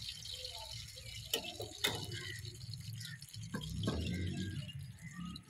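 Mutton sizzling as it fries in ghee in a steel pot, a steady hiss, with a few sharp metal clinks about one and a half, two and four seconds in.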